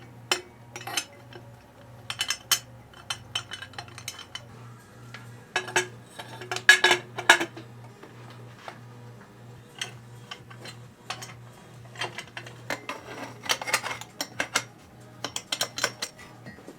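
Metal exhaust parts, clamps and fasteners clinking and knocking together as they are handled and hung loosely in place on a motorcycle. The light metallic clicks come irregularly, in denser clusters about six seconds in and again in the last few seconds.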